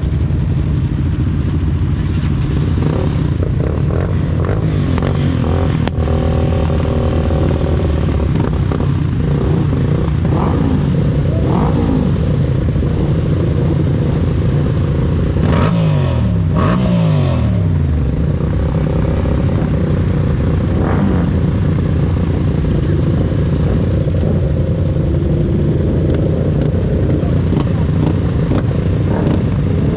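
Yamaha MT-07's 689 cc parallel-twin engine running while riding, with road and wind noise. A little before the middle and again past it, the engine pitch falls in several steps as the revs drop.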